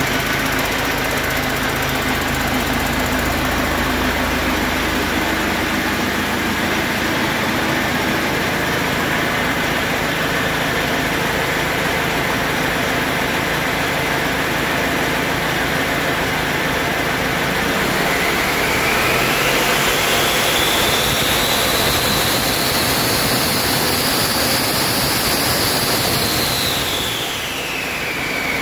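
Detroit Diesel DD5 inline-four turbo diesel engine idling on a test stand. About two-thirds of the way in it is revved: a high whine rises and holds, then falls away as the engine drops back to idle near the end.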